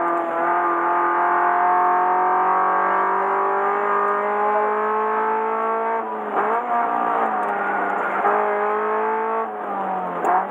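Car engine at full throttle on a circuit lap, its pitch climbing slowly, then dipping briefly about six seconds in before climbing again, and falling near the end as the driver lifts.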